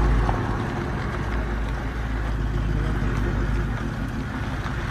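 Car rolling slowly along a dirt track, heard from the cabin: a steady low rumble of engine and tyres on the gravel.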